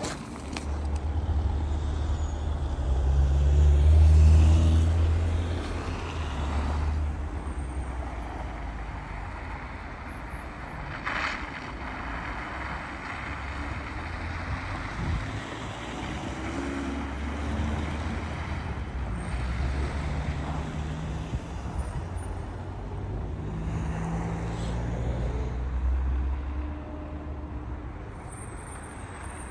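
Road traffic: motor vehicles passing with a low engine rumble, loudest about four seconds in, then another long stretch of passing traffic in the second half.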